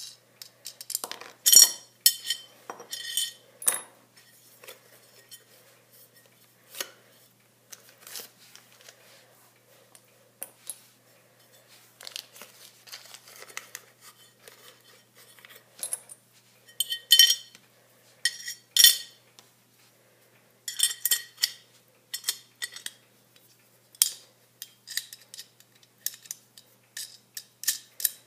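Irregular metallic clinks and clatter of a stainless steel square-tube part and small hand tools being handled and set down on a tile floor, sharp knocks with a short ringing tail coming in scattered groups.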